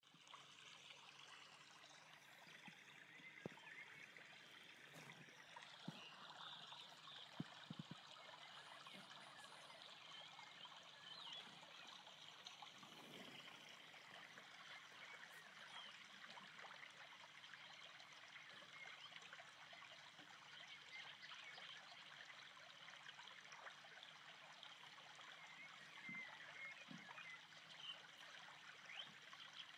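Faint lapping and trickling of small ripples on calm open water: a soft, even wash flecked with tiny ticks, with a few light knocks in the first eight seconds.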